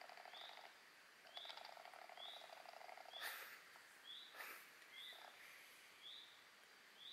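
Faint outdoor animal calls: a short high note repeated evenly about once a second, over a lower pulsing trill that stops about a second in and starts again shortly after. Two brief rustles come a little past the middle.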